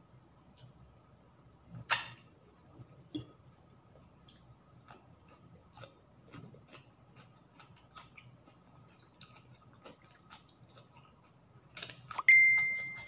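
Eating sounds of a person eating rice and blanched choy sum by hand: scattered small clicks and mouth noises, with a sharp click about two seconds in. Near the end comes a clatter and a clink that rings briefly and fades.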